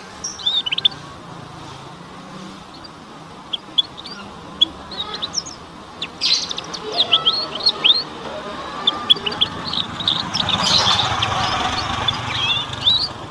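Young domestic canary twittering in short, high chirps and quick downward-sweeping notes, scattered at first and coming thicker in the second half. This is a juvenile's early, unformed twitter (ngeriwik), not yet full song.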